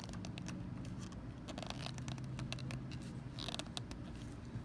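Small plastic clicks and scrapes as a 1/2-inch PVC cap, freshly cemented, is pushed onto the PVC pipe and twisted to seat it, over a steady low hum.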